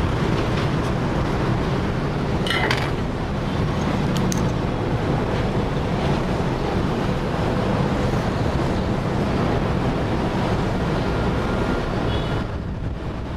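Steady loud whooshing noise with a low hum under it, and a few light clicks about two and a half and four seconds in.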